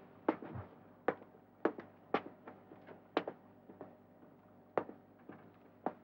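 Footsteps and light knocks on wood: about ten short, sharp taps at uneven intervals, over a faint low hum.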